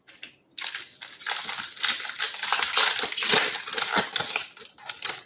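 Foil Bowman's Best baseball card pack being torn open and its wrapper crinkled by hand: a short crackle, then dense crinkling and tearing from about half a second in, stopping just before the end.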